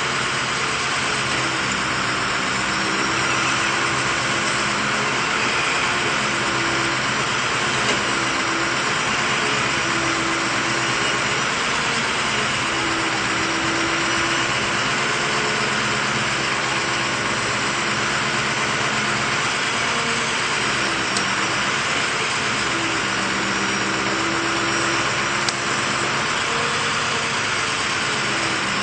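Bucket truck's engine running steadily at idle, a continuous drone whose pitch wavers slightly.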